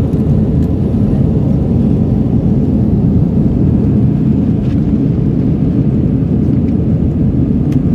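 Steady low rumble of an Airbus A321's engines and rushing air heard inside the passenger cabin during the climb after takeoff.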